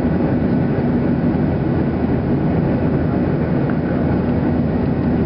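Steady engine and airflow noise inside the passenger cabin of a Boeing 737-800 in flight, an even rush with a low hum.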